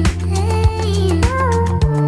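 Background music with a steady beat over sustained bass notes and a gliding melody.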